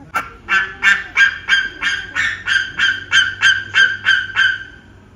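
A rapid, even series of about thirteen loud honking calls, roughly three a second, which stops shortly before the end.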